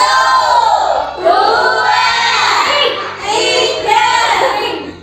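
A group of young schoolchildren singing loudly together, with long held notes.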